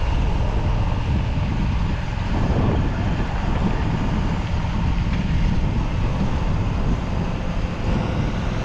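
Work truck engine running steadily: a low rumble with a faint steady whine above it.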